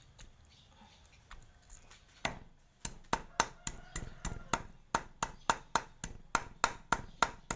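Meat cleaver chopping raw frog, bones included, on a thick wooden chopping block. A few light taps at first, then steady chops about three to four a second from about two seconds in.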